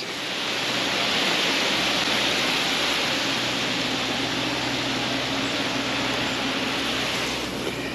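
Garden hose spraying water onto the plants of a hedge-type pitch divider: a steady hiss that eases off near the end.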